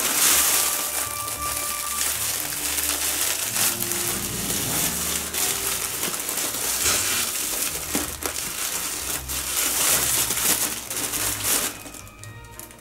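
Clear cellophane gift wrapping crinkling and rustling as it is pulled open by hand, a dense crackle that stops about a second before the end.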